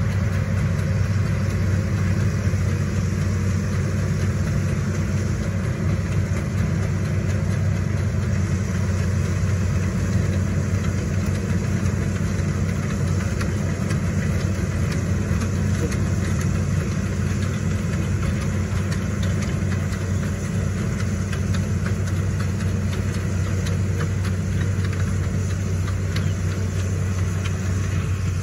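Diesel engine of a Hitachi ZX210 amphibious excavator running steadily as the machine travels on its pontoon tracks, a continuous low hum.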